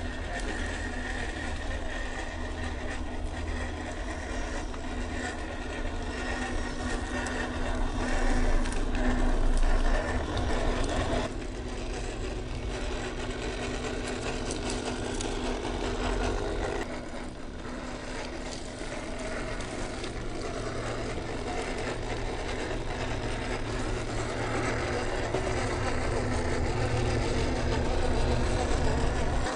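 MN128 1/12-scale RC crawler's small electric motor and geartrain whirring steadily as it crawls over dirt and rock. The sound changes abruptly about 11 and 17 seconds in.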